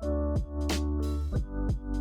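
Background electronic music with a steady beat: drum-machine hits over sustained synth tones and bass.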